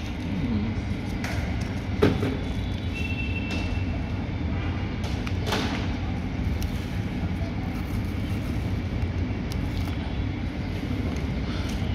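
A steady low rumble with a few brief clicks and rustles of handling, about two seconds and five and a half seconds in.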